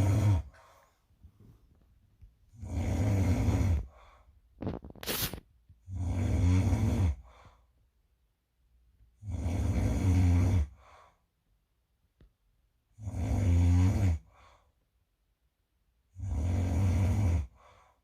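A sleeping person snoring: deep snores about every three to four seconds, each lasting just over a second, with quiet gaps between. A brief sharp sound comes about five seconds in.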